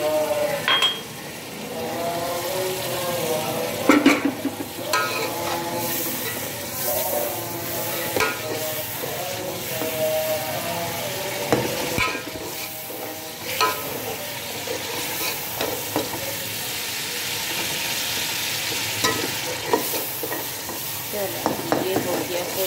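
Potatoes and peas frying in tomato masala in a metal pot, sizzling steadily while a metal ladle stirs them, knocking and scraping against the pot's side every few seconds.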